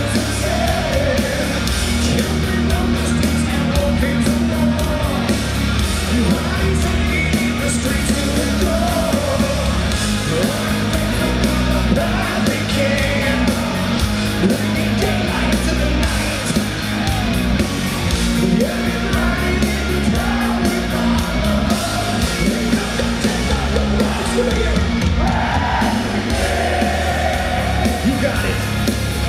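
Heavy metal band playing live, with sung and shouted lead vocals over loud, steady band music.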